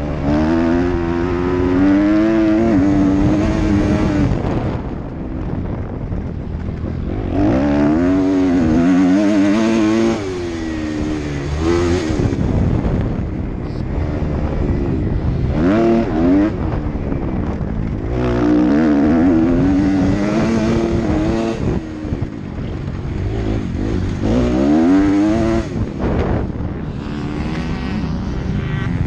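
Kawasaki KX250F's four-stroke single-cylinder engine ridden hard, its pitch climbing again and again as it accelerates and falling back as the throttle is closed, with a few brief lulls.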